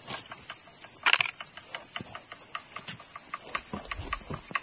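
Steady high-pitched insect chorus, with scattered light clicks and rustles as a long pole pokes into dry foliage overhead.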